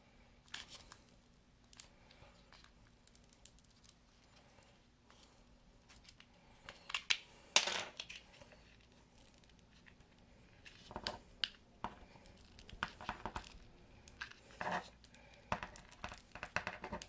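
Old iPhone SE battery being pried out against strong adhesive: scattered small clicks, scrapes and crinkling as the tool works under the bending battery and the glue tears loose. The sharpest click comes about halfway through, and the handling gets busier near the end.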